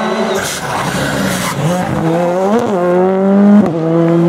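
Ford Fiesta rally car's engine coming off the throttle for a bend, with two short noisy bursts, then accelerating hard. The revs climb and drop at upshifts about two and a half and three and a half seconds in, and it is loudest just before the second shift.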